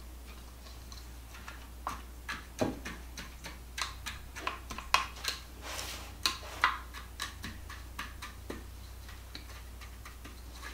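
A measuring cup patting and pressing a graham cracker crumb crust into a glass baking dish: light, irregular taps and clicks, starting about two seconds in.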